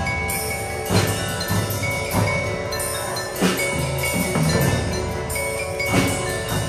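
Music of ringing bell-like mallet tones over a steady beat, with a strong drum hit about once a second.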